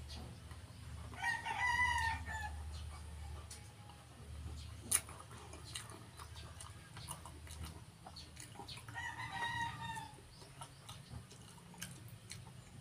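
A rooster crowing twice, each crow a bit over a second long, the first about a second in and the second about nine seconds in. A single sharp click about five seconds in, and a low hum under the first part.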